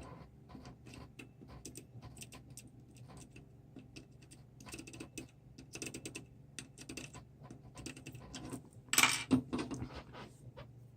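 Irregular small clicks, taps and scrapes of hand tools against a circuit board and desk during SMD desoldering, with a louder clatter about nine seconds in.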